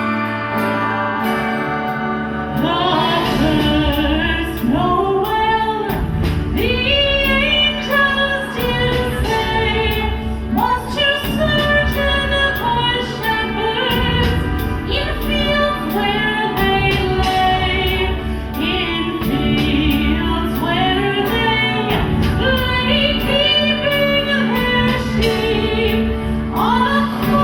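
Live Christmas show music: a female vocalist singing a melody over instrumental backing, her voice coming in about two and a half seconds in.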